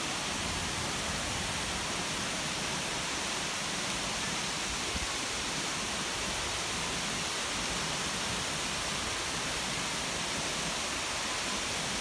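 Steady, even rush of falling water from Shiraito Falls, its many thin streams pouring down a wide cliff, mixed with the rocky stream below.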